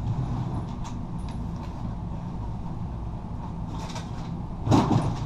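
Cardboard packaging of a drone box being handled, with light rustles and creaks over a steady low hum, and a louder rustle and scrape near the end.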